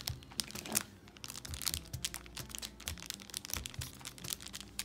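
Plastic-and-foil candy kit package crinkling and crackling irregularly as hands press and flatten dough on top of it.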